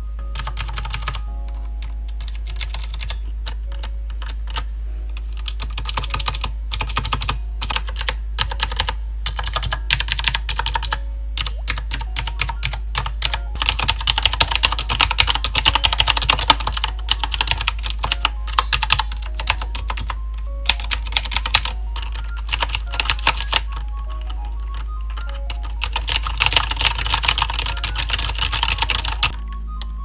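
Typing on a QWERKYWRITER S typewriter-style mechanical keyboard with round keycaps: a stream of quick key clicks, coming in fast, dense runs about halfway through and again near the end.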